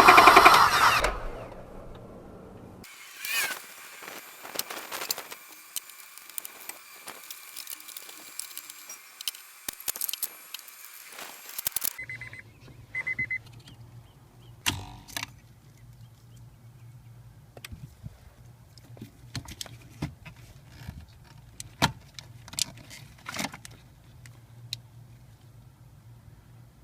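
Scattered metallic clicks and clinks of hand tools and parts being handled during engine-bay repair work, over a low steady hum. A loud noise in the first second fades quickly.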